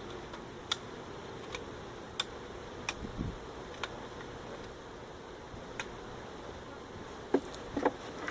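A swarm of honey bees buzzing steadily around an opened hive, with a few sharp clicks scattered through it and some low knocks near the end.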